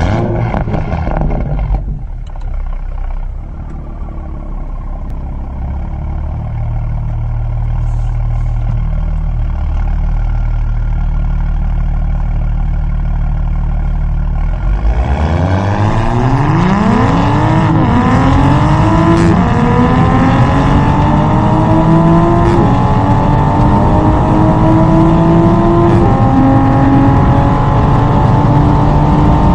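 Toyota GR Supra 3.0T's turbocharged inline-six through a full catless Fi exhaust, running low and steady for about fifteen seconds. Then it accelerates hard, the pitch climbing quickly and dropping back at each of several upshifts as the car pulls through the gears at full throttle.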